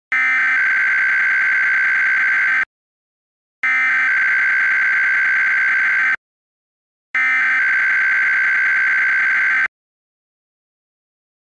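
Emergency Alert System SAME header: three identical bursts of rapid two-tone digital data screech, each about two and a half seconds long with about a second of silence between. It is the coded header announcing a Required Weekly Test.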